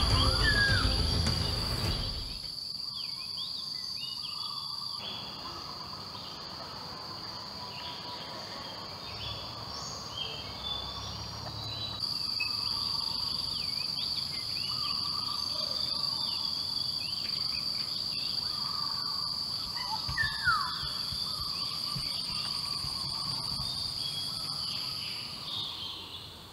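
Forest ambience: a steady high insect drone with scattered bird chirps and calls. The drone stops for several seconds about five seconds in, then resumes. Background music fades out in the first two seconds.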